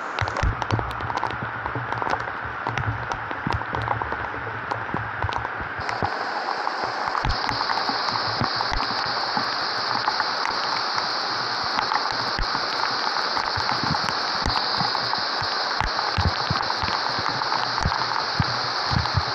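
Heavy rain falling through a leafy forest, a steady wash of rain with many single drops tapping close by. A steady high hiss joins about six seconds in and runs to near the end.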